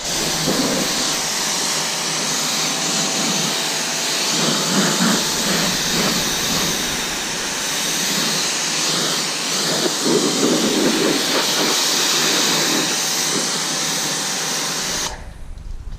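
Kranzle 1122TST pressure washer spraying a steady jet of water against the car: a loud, even hiss that cuts off suddenly near the end.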